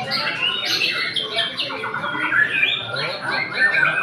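Several white-rumped shamas singing at once, a dense, continuous tangle of overlapping fast whistles, trills and harsh rattling notes.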